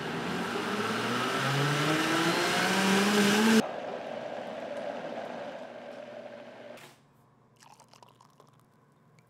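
Countertop blender motor running on liquid and speeding up, its pitch rising, until it cuts off abruptly about three and a half seconds in. A quieter, steadier whir follows for about three seconds, then faint sounds of liquid being poured into a glass.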